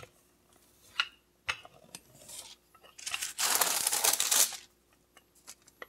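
Parchment paper rustling and crinkling for about a second and a half as it is pulled flat on the counter, after a few light taps.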